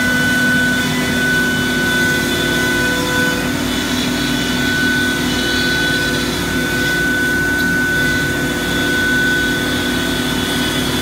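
Techno HD CNC router spindle running and its bit cutting plywood, with the vacuum hold-down pump and dust extraction running: a steady high whine over an even rushing noise, without change.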